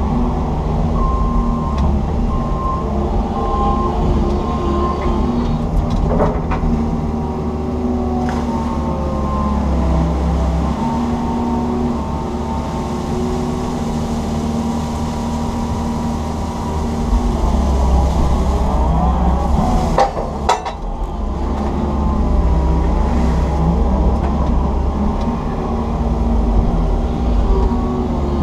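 Komatsu PC160 hydraulic excavator heard from inside its cab: the diesel engine running steadily under load, with the hydraulic whine shifting in pitch as the boom and bucket dig silt and weeds from a ditch. A few sharp knocks, the sharpest about twenty seconds in.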